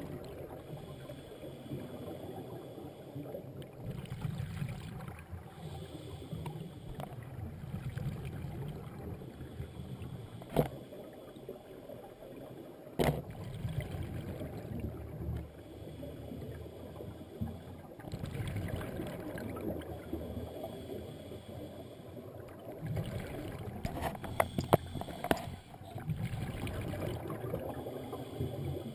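Scuba diver breathing through a regulator underwater: a hiss on each inhale alternating with a low bubbling of exhaled air, in slow repeating cycles, with a few sharp clicks along the way.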